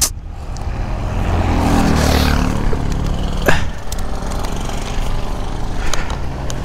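Street traffic: a motor vehicle's engine running as it passes, swelling about two seconds in, with a sharp knock a little after the middle.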